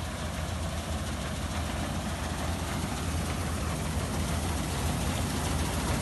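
Combine harvester running as it cuts wheat: a steady heavy engine drone under the noise of the cutting header and threshing works, growing slightly louder as the machine comes closer.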